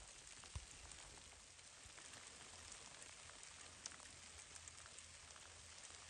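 Faint patter of falling snow pellets that look like hail: a soft steady hiss with scattered tiny ticks, and one soft thump about half a second in.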